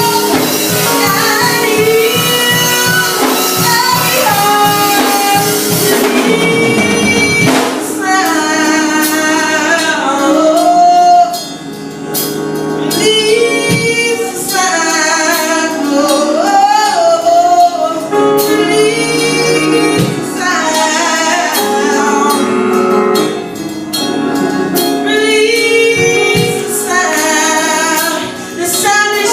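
Church worship music: voices singing over instrumental accompaniment, a woman's voice prominent. The low accompaniment drops away about seven seconds in, and the singing carries on in repeated phrases.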